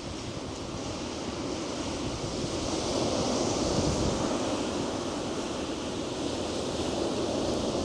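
Sea surf breaking and washing up the beach, one wave swelling to its loudest about three to four seconds in, with wind on the microphone.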